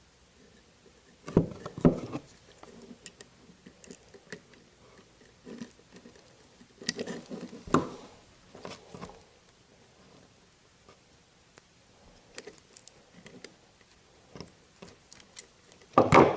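Handling noise from hand wiring work: scattered clicks and rustles of wire, small tools and connectors, with louder clusters about a second and a half in, about seven seconds in, and at the very end.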